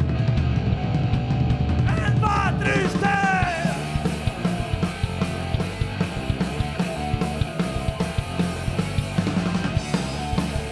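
Punk/metal band playing live, with drums, bass and distorted guitar, and a shouted voice over the music about two seconds in.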